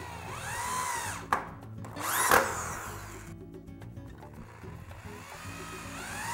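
Power drill whirring up to speed and winding down, once near the start and again near the end, over background music with a steady bass line. A sharp click follows the first run, and a louder harsh burst comes a little over two seconds in.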